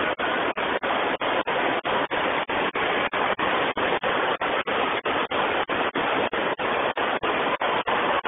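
Loud, steady rush of water from a FlowRider wave machine, a thin sheet pumped up its padded slope, cut by brief dropouts about four times a second.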